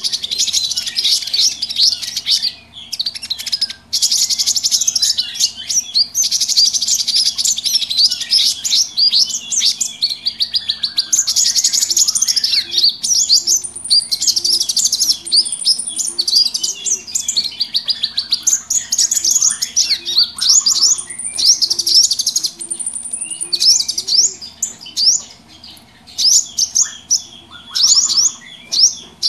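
A noisy mix of many small songbirds chirping and trilling at once, fast high-pitched calls without pause, a bird-trapping lure recording.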